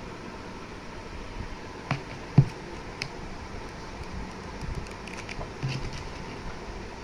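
A paperback picture book being handled, closed and turned over by hand: a few soft knocks and paper rustles over a steady background hiss. The loudest is a single thump about two and a half seconds in.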